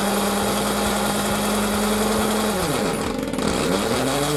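Electric drill running steadily under load while drilling a hole, its motor pitch dropping and then rising again about three seconds in as it slows and picks back up.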